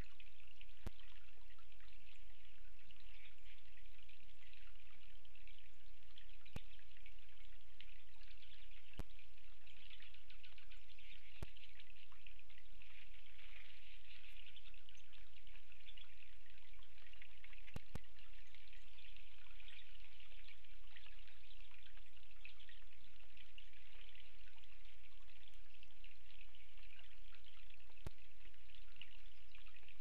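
Steady, fine crackling patter of wet snow and meltwater dripping, with a handful of sharp isolated clicks scattered through.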